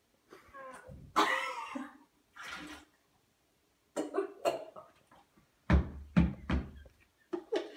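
A woman gagging and retching in several short bouts, the loudest about a second in, at the mess she is scooping out of a clogged sink.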